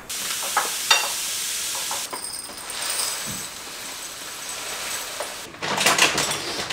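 Dry grain poured from a bag into a glass jar, a steady hissing rustle that lasts about five seconds. Near the end, glasses and dishes clink and clatter as a dishwasher rack is unloaded.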